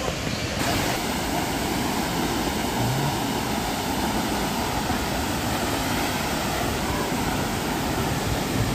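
Large waterfall's steady rushing roar, an even wash of water noise with no breaks, its tone shifting slightly just under a second in.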